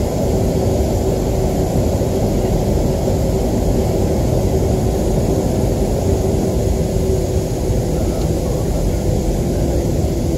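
Steady cabin noise of a Boeing 737-300 taxiing, heard from a window seat over the wing: its CFM56-3 jet engines at low taxi power and the cabin air, a constant low rumble with a steady hum.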